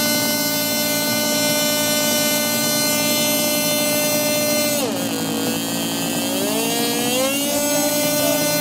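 Model airplane engine running steadily at high speed during engine tuning on the ground. About halfway through its pitch drops sharply, then climbs gradually back up over a couple of seconds before holding steady again.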